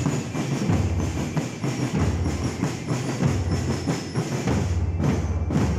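Marching peace band (banda de paz) playing: a fast, steady drum beat with heavy bass-drum strokes and snare hits, and the high ringing notes of bell lyres over it.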